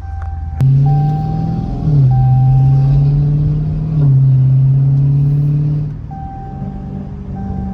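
Dodge Challenger Scat Pack's 392 Hemi 6.4-litre V8, loud through catted-deleted (gutted) exhaust, pulling hard from about half a second in with two quick breaks in its note like gear changes, then easing off near the end.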